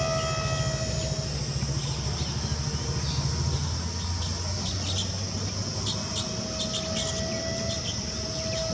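Whine of a small electric-powered RC jet's motors, a steady pitch that fades out after the first second and comes back near the end, over a constant hiss and low hum.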